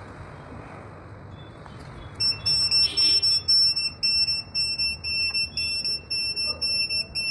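High-pitched electronic beeping of a conventional fire alarm system's buzzer. It starts about two seconds in and pulses rapidly, a few beeps a second.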